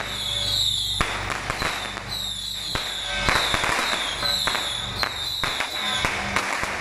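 Strings of firecrackers crackling and popping in rapid, uneven bursts, over a high wavering tone that repeats about once a second and a low steady hum.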